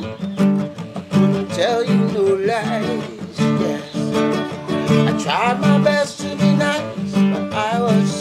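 Nylon-string classical guitar strummed in a steady rhythm of about two chords a second, with a man singing along.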